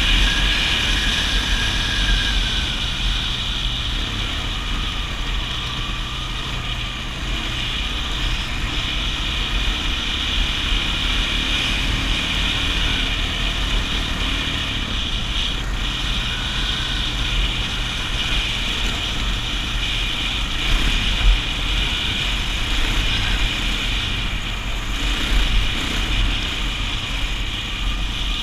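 Kawasaki KFX400 ATV's single-cylinder four-stroke engine running steadily under way, tyres rolling over a dirt and gravel track, with one sharp knock about three-quarters of the way through.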